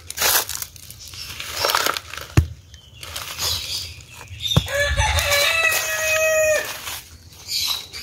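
A rooster crowing once, one long call of about two seconds in the middle, with a few knocks and rustles before it.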